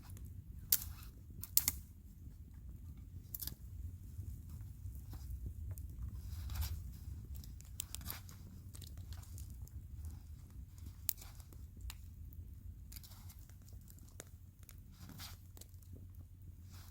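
Pine firewood crackling and snapping: irregular sharp cracks and pops, a few of them loud, over a low steady rumble.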